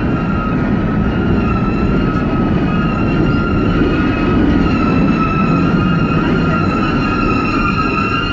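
Freight cars of a mixed freight train rolling past close by: a loud, steady rumble of steel wheels on the rails with a steady high-pitched squeal from the running gear.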